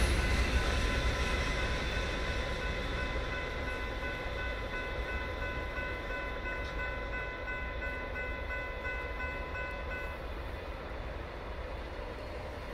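Railroad crossing bell ringing rapidly while the rumble of a train fades away as it moves off; the bell stops about ten seconds in.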